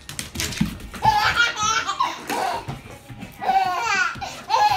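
A baby laughing in several bursts of belly laughter, with music in the background.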